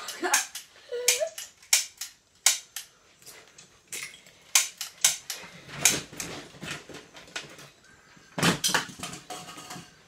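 Toy pistols being fired: a string of sharp cracks at irregular intervals, about two a second, with a heavier cluster and a thump about eight and a half seconds in.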